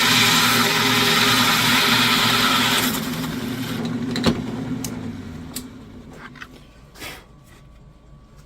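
Electric drill running a hole saw through plywood, steady under load, then releasing and spinning down about three seconds in. A single sharp knock follows, then a few light clicks.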